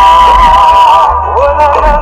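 Music playing: a held, wavering melody line over a steady bass.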